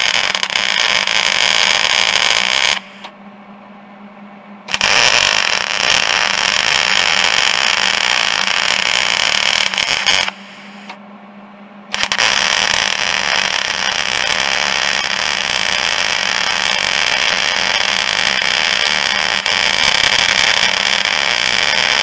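Wire-feed (MIG) welding arc laying beads on a snowmobile ski, in three runs broken by two short pauses, about three and ten seconds in.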